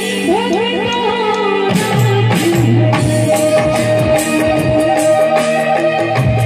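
Live Indian stage music: a keyboard melody over drums and tambourine-like percussion keeping a steady beat, with a long held note through the second half.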